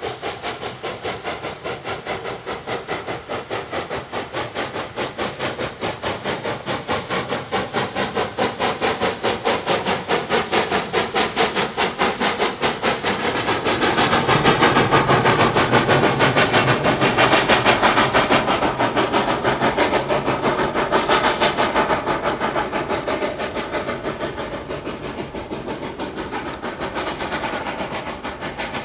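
Narrow-gauge steam locomotive working hard upgrade, its exhaust chuffing in a steady rapid beat. The chuffing grows louder towards the middle and then eases off.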